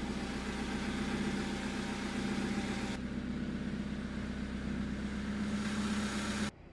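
Boat engine running steadily with a low hum, cutting off suddenly near the end.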